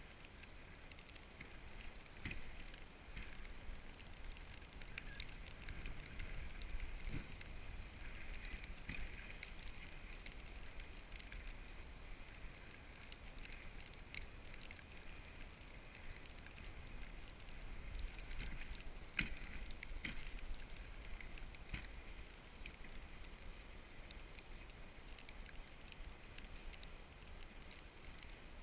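Dog sled runners gliding over packed snow as the husky team pulls, a faint steady hiss with a low rumble and scattered small crackles and knocks.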